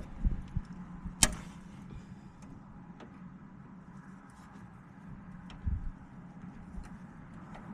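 Hand tools clinking on metal during tie rod work on a pickup's steering linkage: one sharp metallic clink about a second in, then a few faint clicks and a soft thump, over a steady low hum.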